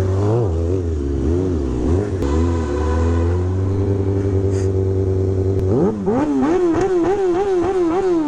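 Motorcycle engine idling and being revved in throttle blips: a few rises and falls early on, a steady idle, then a sharp climb about six seconds in into a quick string of blips that drops back near the end.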